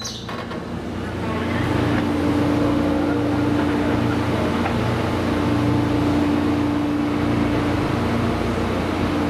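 A vehicle engine running steadily, a low rumble with a steady hum that builds over the first second or two and then holds even.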